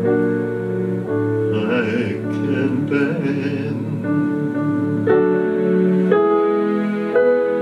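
Yamaha digital keyboard playing slow, sustained chords, with a man's voice singing a wavering held line in the first half. In the second half the chords change about once a second.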